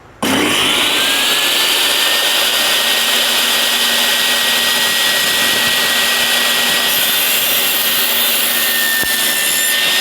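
Table saw switched on just after the start: its motor whine climbs within about a second to a steady high pitch and the saw runs on at full speed, loud and even.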